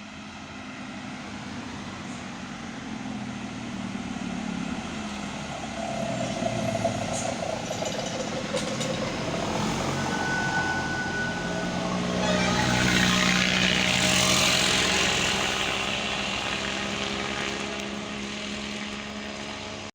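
A large bus going by with its engine running, building to a loud hiss of air in the middle, with a few brief tones along the way.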